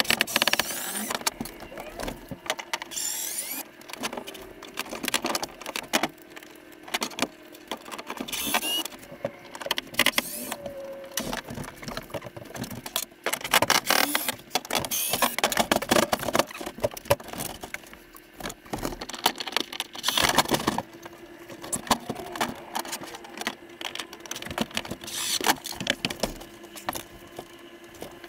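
Cordless drill-driver backing screws out of a wooden bunk frame, running in repeated short bursts that rise and fall in pitch, with knocks and rattles of the tool and screws between the bursts.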